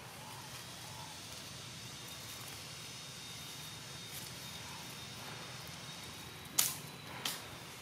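Forest ambience: a steady high hiss with a thin, high, even whine running through it, and a couple of faint short chirps in the first second. Near the end come two sharp clicks under a second apart, the loudest sounds.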